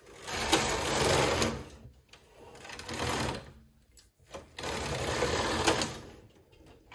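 Knitting machine carriage of a Silver Reed SK840 with SRP60N ribber pushed across the needle beds three times, each pass a rasping whir of one to two seconds, knitting tight rows at tension 1-1.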